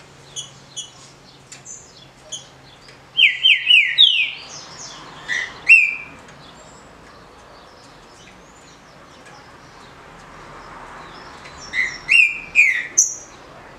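Caged green-winged saltator (trinca-ferro) singing its short song: a loud phrase of quick down-slurred whistles ending in a rising note about three seconds in, a couple of whistled notes shortly after, and a second phrase near the end. Faint high chirps fall between the phrases.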